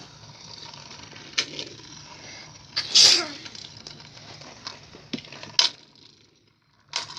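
Beyblade spinning tops whirring as they battle in a plastic stadium, with sharp clicks as they strike each other or the wall. A loud breathy burst comes about three seconds in.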